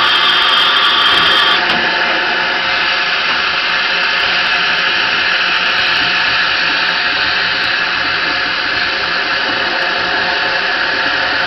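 Steam hissing steadily from LBSC Terrier tank locomotive Fenchurch.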